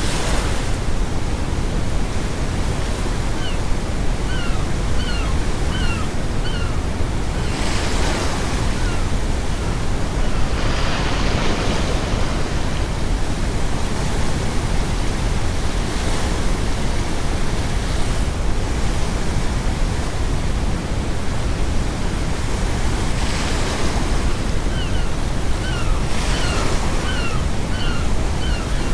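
Steady brown noise laid under ocean surf, with waves breaking four times, and seagulls calling in quick runs of short calls, one run in the first quarter and another near the end.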